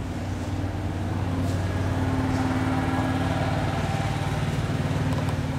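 An engine running steadily at an even speed, with a regular beat of firing pulses.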